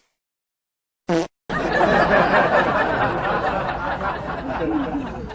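People laughing and chuckling. It starts about a second and a half in, after a brief short sound, and slowly fades.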